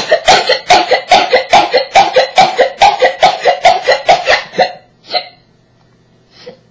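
A young woman's voice in a rapid run of about twenty short, sharp vocal bursts, about five a second, starting abruptly and breaking off after some four and a half seconds, with one last burst just after.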